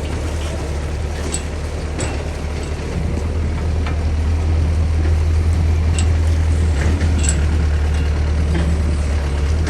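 Mini excavator's diesel engine running steadily, growing louder about three seconds in, with a few sharp metallic clinks scattered through it.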